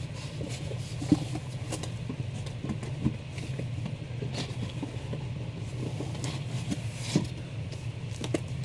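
Comic books and cardboard rustling and tapping as they are handled and lifted out of a shipping box, with a few sharper clicks, over a steady low hum.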